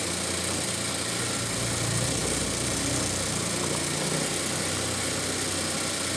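Electronic industrial sewing machine running steadily, stitching through a thick crocheted rug: an even, continuous mechanical hum.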